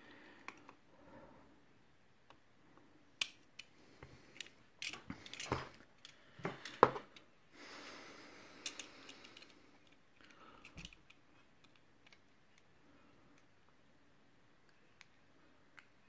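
Small clicks and scrapes of a razor blade working at the edge of a CPU's metal heat spreader, cutting the sealant beneath it, with handling taps from the chip. The clicks come scattered, with a busier run of sharper clicks and a short scrape about four to eight seconds in.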